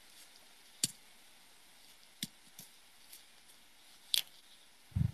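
Faint hiss with a few sharp small clicks, then a short low thump near the end.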